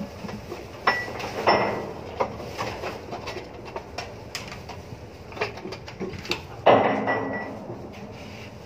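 Metal clanks and knocks, with scattered smaller clicks between them. The loudest comes near seven seconds in and another about a second in; both ring briefly like struck steel.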